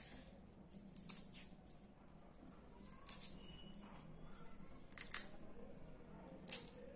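Onion being sliced with a knife: a handful of short, crisp cuts at irregular intervals.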